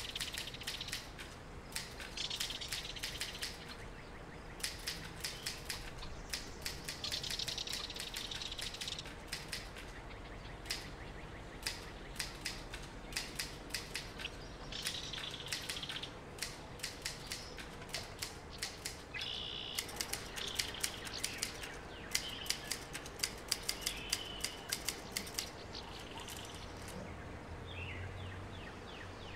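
Manual typewriter keys clacking in irregular bursts of rapid strokes, with short pauses between bursts. Birds chirp now and then over the typing.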